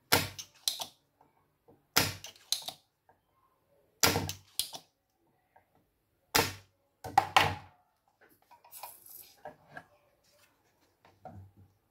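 Spring-loaded desoldering pump snapping as its plunger is released at the soldering-iron tip, sucking molten solder off capacitor leads on a motherboard. The snaps come in pairs about every two seconds, four pairs in all, followed near the end by softer knocks as the board is handled.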